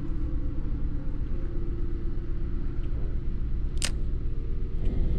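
A steady low mechanical rumble with a constant hum, a motor running throughout, and one sharp click nearly four seconds in.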